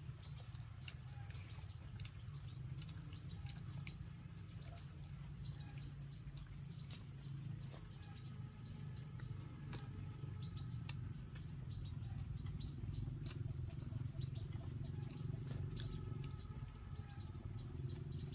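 Steady high-pitched insect chorus, two unbroken tones held throughout, over a low rumble and a few faint clicks.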